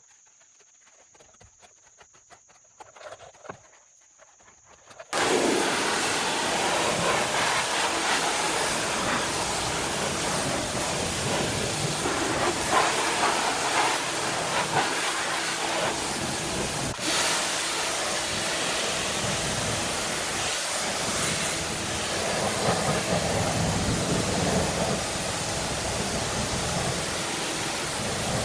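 Faint ticks for about five seconds, then a pressure washer's spray starts abruptly and runs as a loud, steady hiss, most likely the jet hitting a wheel and tire, with one brief dip about two-thirds of the way through.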